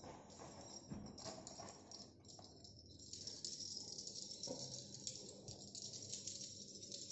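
Cats moving about and playing: faint scuffles and a few light taps, over a steady high hiss.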